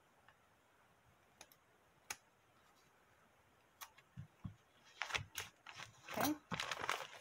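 Fiskars curved applique scissors snipping appliqué fabric on a terry-cloth towel: a few single sharp clicks spaced a second or so apart. From about four seconds in come a couple of soft thumps, then a denser run of louder crackling and rustling as the towel and its paper stabilizer are handled.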